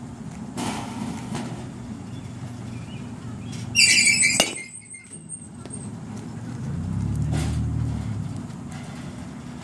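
A softball struck by an Easton bat about four seconds in: a loud, short high-pitched ping and a sharp crack. A steady low rumble runs underneath.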